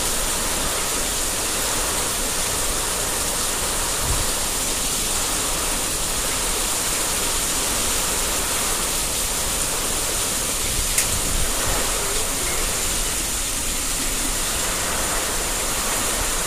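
Heavy rain pouring down in a steady, dense hiss, with one short click about eleven seconds in.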